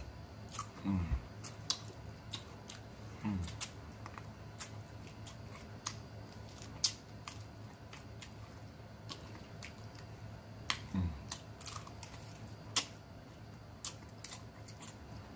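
Close-up mouth sounds of people eating chicken wings: scattered wet smacks and clicks of chewing, sucking meat off the bone and licking fingers. A short, low hum that drops in pitch is heard about a second in, again about three seconds in, and again about eleven seconds in.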